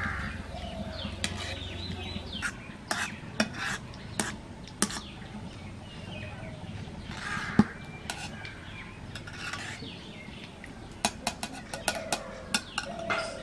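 Steel spoon and pots clinking and knocking against each other: a scattering of sharp metal taps with one loud knock about midway and a quick cluster near the end. This is the sound of freshly fried grated chhana being moved from the wok of oil into the bowl of sugar syrup.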